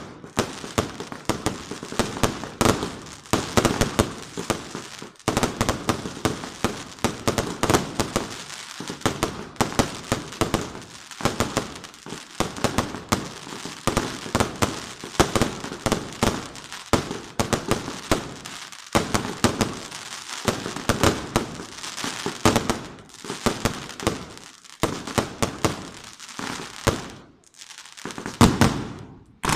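Fireworks going off in a dense barrage: many sharp bangs and pops in quick succession with crackling in between. They thin out for a moment near the end before one last loud bang.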